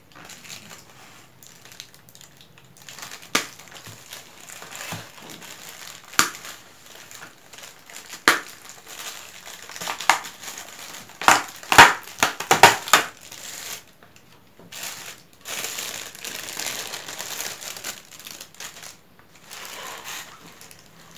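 Clear plastic food tray crackling and clicking as its thin lid is fingered and pried open, with a run of loud sharp crackles about halfway through. Plastic rustles softly near the end.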